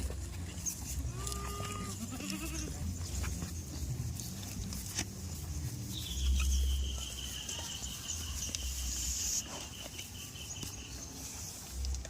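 A goat bleats briefly about a second in, over a low rumble. A long, high, thin tone falls and then holds steady from about six to ten seconds in.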